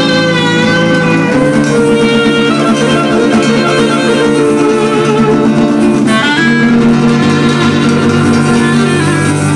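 Live acoustic ensemble music: a clarinet plays a wavering melody over acoustic guitar accompaniment, with sustained chord tones beneath that change twice.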